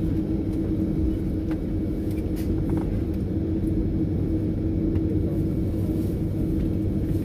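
Airbus A330-200 cabin noise: a steady low rumble with a steady hum, the airliner rolling on the ground just after landing. Now and then a faint click.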